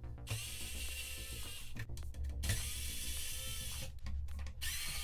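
Cordless electric screwdriver running in three spurts of a little over a second each, with short pauses between, as it backs screws out of the plastic back panel.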